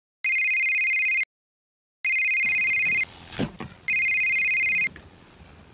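Telephone ringing three times: each ring is an electronic trilling tone about a second long, with a pause of just under a second between rings. Faint room noise with a couple of soft knocks comes in after the second ring.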